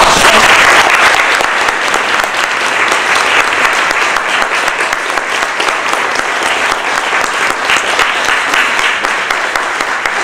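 Audience applauding, starting all at once and easing off gradually.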